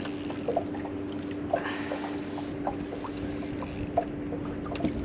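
A boat's steady low hum, with water slapping and knocking against the hull every second or so.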